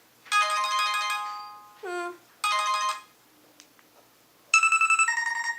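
Cell phone ringtones playing through the phone's small speaker: a bright chime that fades out, a short sliding note, and a second chime cut short. Then a warbling electronic two-tone ring, a high pitch followed by a lower one, in the style of a home telephone ringing.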